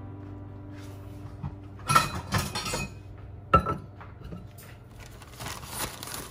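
Kitchenware clinking: a few sharp knocks of dishes or utensils about two seconds in and again about three and a half seconds in. Near the end comes the rustle of a plastic zipper bag of brown sugar being brought over the bowl. The tail of guitar music fades out at the start.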